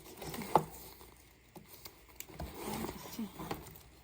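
Handling noise from a handbag being turned over and looked through: light rustling with scattered small taps and clicks, the sharpest about half a second in.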